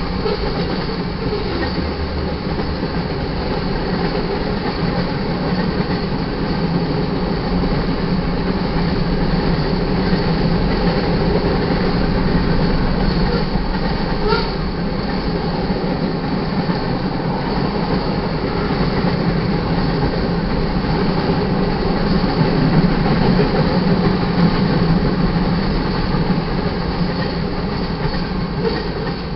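Freight cars of a manifest train rolling past at close range: the steady noise of steel wheels running over the rails, holding level throughout.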